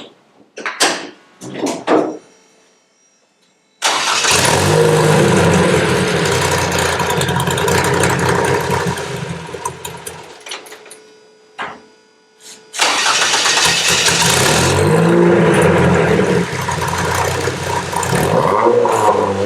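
Toyota 1AR-FE four-cylinder engine with upgraded camshafts, in an MR2 Spyder, starting up suddenly about four seconds in after a few clicks and revving once before settling. It dies away near the middle, then starts again and revs.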